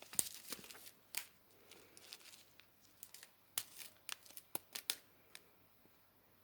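Small plastic bags of diamond painting drills being handled: faint crinkling with scattered clicks, and a quick run of sharp ticks about four to five seconds in.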